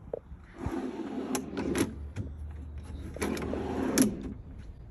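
A wooden slide-out drawer with a sheet-metal top rolling along its metal drawer slides twice, each a rough sliding run of about a second and a half ending in sharp clacks, the last clack the loudest.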